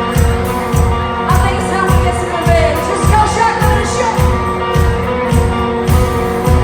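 Country band music with a steady drum beat and sustained instrument tones.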